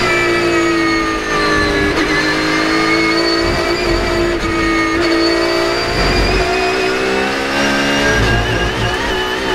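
Porsche 992 GT3 Cup race car's 4.0-litre naturally aspirated flat-six heard from inside the cockpit. The revs fall as the car brakes into a corner in third gear, hold around 7,000 rpm through the turn, then climb steadily at full throttle to about 8,500 rpm near the end.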